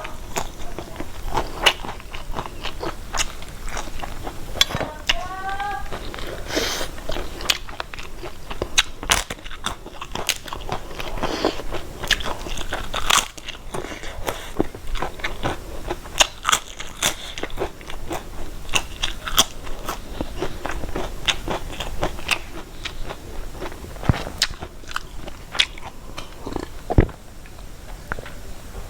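A person chewing and biting food close to the microphone, with many irregular wet mouth clicks and crunches.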